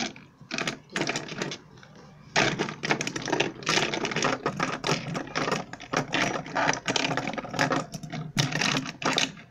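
Fidget spinners clattering against each other and the tabletop as a hand rummages through a pile of them: a few knocks at first, then from about two seconds in a dense run of small hard clicks.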